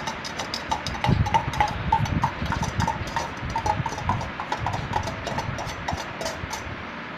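A metal spoon clinking and scraping against a pan in quick, irregular clicks and pings, as boiled moong dal is tipped into cooked ponnaganni greens and stirred; the clinking stops near the end.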